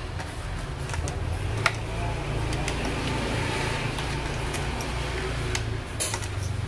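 A screwdriver scraping and clicking against the metal rim of a rear crankshaft oil seal as it is pried out of the engine block, with a few sharp clicks over a steady low hum.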